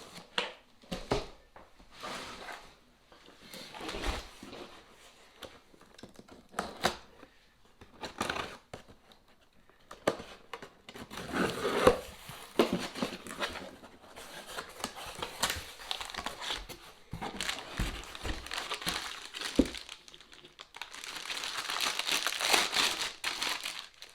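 Packaging crinkling and tearing in irregular bursts as tools are unwrapped by hand, with occasional light knocks, and a longer stretch of steady crinkling near the end.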